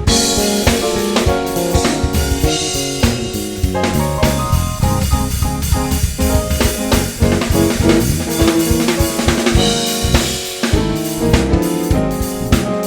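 Gospel praise music with a full drum kit keeping a steady beat on bass drum and snare, over sustained pitched instruments.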